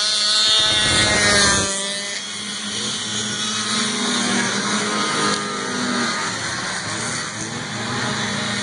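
Vintage racing snowmobiles' two-stroke engines running at high revs as they race past. The loudest sled passes close in the first two seconds, and more sleds follow about four seconds in.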